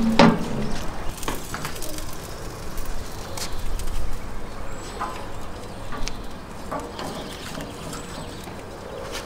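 Scattered light metallic clicks and taps from fish being handled on a barrel smoker's grill grate. A bird calls in the background near the start.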